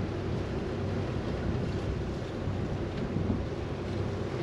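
Steady wind rushing over the microphone and water noise around a sailing catamaran under way, with a low, even hum beneath, most likely its engines turning slowly.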